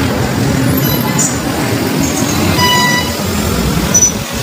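Busy road traffic, with vehicles running and a vehicle horn sounding briefly about two and a half seconds in.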